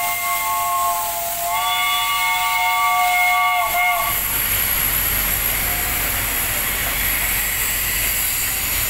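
Steam locomotive whistle sounding a chord of several notes. It steps up slightly in pitch about one and a half seconds in and cuts off about four seconds in, followed by a loud, steady hiss of steam.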